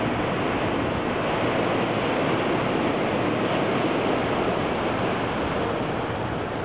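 Steady rush of surf breaking on a sandy beach, an even noise with no distinct events.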